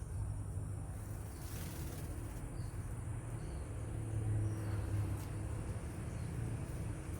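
Outdoor ambience: a steady low rumble, with a thin steady high insect-like drone and a few faint short chirps. A brief hiss comes about one and a half seconds in.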